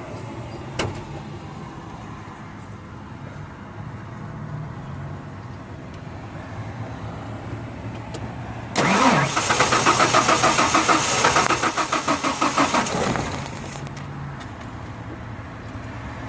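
1994 Ford F-150's starter cranking the engine for about four and a half seconds, a steady pulsing churn of roughly four beats a second, and the engine never catches: it cranks but won't start, which starter fluid did not help. A single click comes about a second in.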